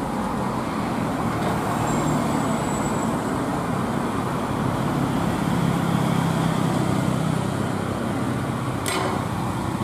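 Heavy diesel engines and road traffic: a Hino truck's engine drones low and swells around the middle as the truck moves forward. A single sharp knock comes near the end.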